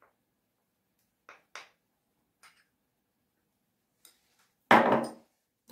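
A few light clicks and taps of kitchenware being handled, then one loud knock near the end, like a container or utensil set down on the table.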